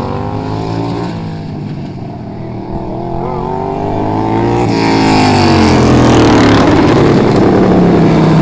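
Racing lawnmower engines running hard, their pitch rising and falling with the throttle. The sound swells louder about halfway through as the machines come closer.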